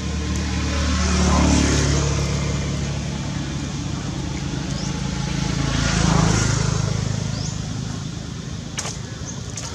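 Motor vehicles driving past, a steady engine drone that swells twice, about a second and a half in and again about six seconds in, fading after each.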